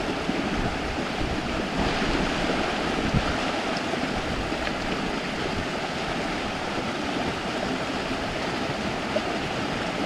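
Mountain stream running: a steady wash of water, with a single light knock about three seconds in.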